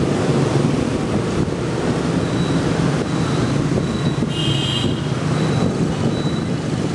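Riding on a motorbike in city traffic: a steady engine hum under road noise and wind buffeting the microphone. A brief high beep sounds about four and a half seconds in.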